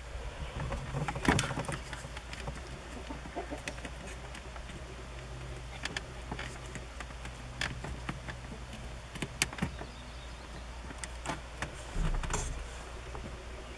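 Scattered small clicks and taps of plastic parts being handled as a replacement #74 bulb and its socket are worked into the back of a truck's instrument cluster, over a steady low hum. The sharpest clicks come about a second in and near the end.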